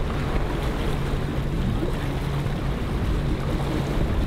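A motorboat's engine running steadily as it tows a raft, a low even hum under rushing water and wind on the microphone.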